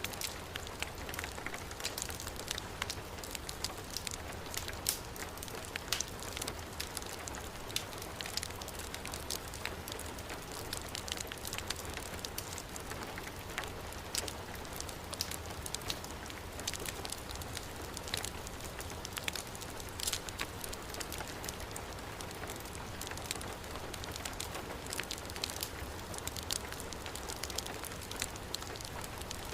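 Steady hiss of heavy rain mixed with a wood fire in a fireplace crackling, with frequent sharp, irregular pops.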